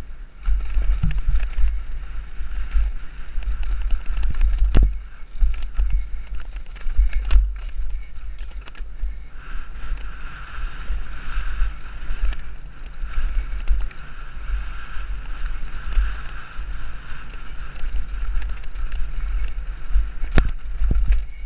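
Mountain bike rattling down a rough dirt trail at speed, with wind buffeting the microphone and sharp knocks and clatters as it hits roots and rocks. A steady higher buzz joins in from about halfway.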